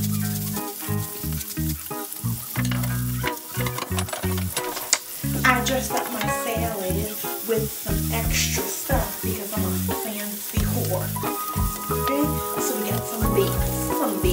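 Green beans sizzling and crackling in melted butter and minced garlic in a frying pan, under background music with a pulsing bass line.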